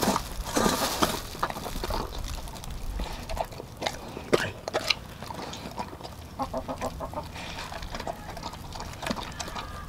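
A dog eating ground raw meat from a stainless steel bowl, with wet chewing and lapping and sharp clicks throughout. The wet bursts are loudest in the first two seconds.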